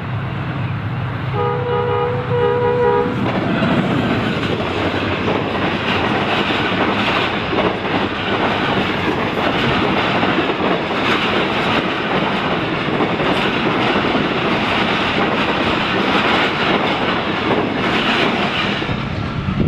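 A diesel passenger train's horn sounds once, about a second and a half in, lasting about a second and a half. The train then runs past close by, with a steady rumble of the coaches and their wheels clattering over the rail joints.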